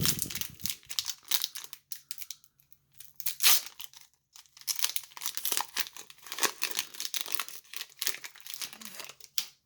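Foil wrapper of a Pokémon booster pack crinkling and being torn open in irregular crackles and rips.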